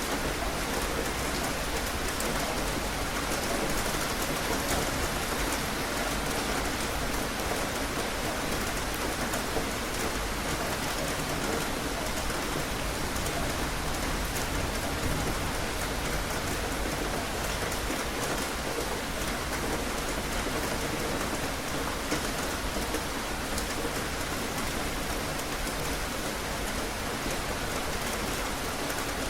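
Steady rain falling, a constant even hiss with faint scattered drop ticks.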